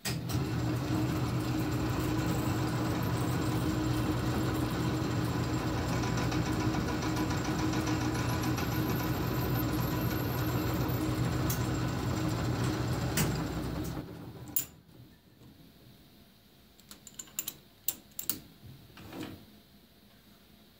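Small bench metal lathe running steadily with its chuck spinning, then switched off about 14 seconds in. A few light clicks and taps follow.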